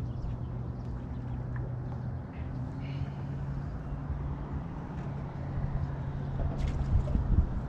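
Pickup truck engine idling steadily, a low hum over wind rumble on the microphone, with a few low thumps near the end.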